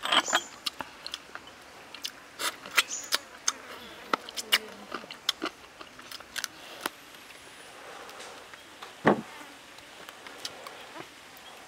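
Chewing and wet mouth clicks of someone eating soft young coconut flesh close to the microphone, with one heavier thump about nine seconds in.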